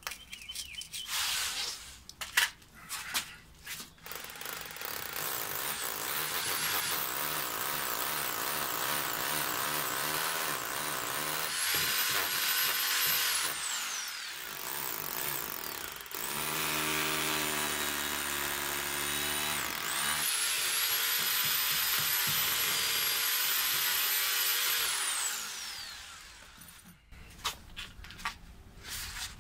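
Electric drill boring into face brick. A few knocks of handling come first, then the motor whines up and drills in three runs with short breaks between them. The whine slides down each time it stops, the last time a few seconds before the end.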